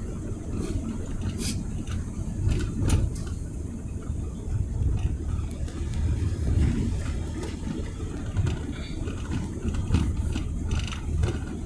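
Car driving along, heard from inside the cabin: a steady low rumble of engine and road noise that swells and eases, with a few faint clicks and rattles.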